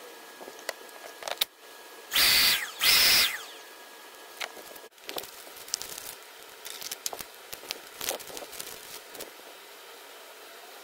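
Two short loud bursts of a motor running, about two seconds in, each cut off after under a second. Then crinkling of a plastic bag and light clicks from handling a small plastic part.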